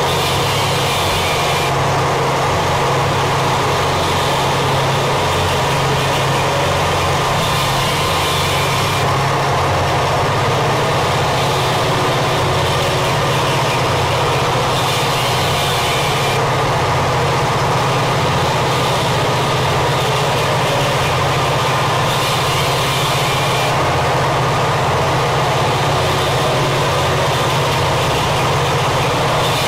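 Harsh power-noise music: a dense, unbroken wall of distorted noise at constant loudness over a low drone that shifts in pitch in short steps. The hiss on top flares up briefly about every seven seconds.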